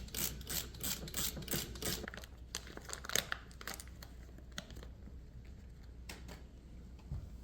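A ratchet wrench worked in quick regular strokes, about three a second, for the first two seconds, while the outboard lower unit is taken apart. After that come a few scattered clicks and knocks of tools and parts.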